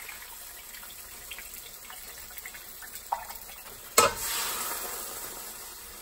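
Water swirled in an emptied metal cheese-sauce can. About four seconds in there is a sharp knock as the can is tipped against the skillet. Then a sizzling hiss as the cheesy water pours into the hot skillet of cheese sauce; the hiss fades.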